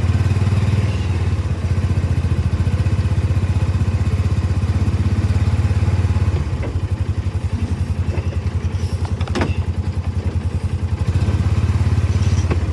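Old plow truck's engine running, heard from inside the cab: a steady low throbbing that eases off a little in the middle and picks back up near the end. A brief click about nine seconds in.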